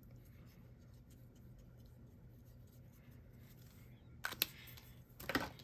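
Faint steady hum, then short sharp handling noises about four seconds in and again near the end, as paper cards and craft supplies are moved on the table.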